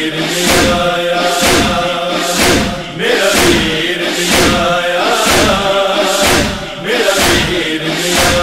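Interlude of a noha lament: a wordless male chorus chanting held, drone-like tones over a steady, even beat.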